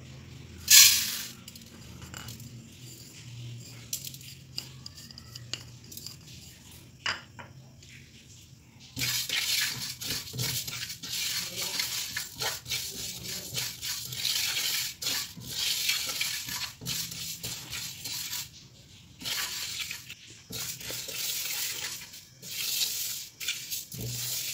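Flaxseeds dry-roasting in a metal kadai, stirred with a silicone spatula: from about nine seconds in, a dense rustling scrape of seeds sliding against the pan comes in waves with each stroke. Earlier there is one sharp clatter under a second in, then only quiet scattered clicks.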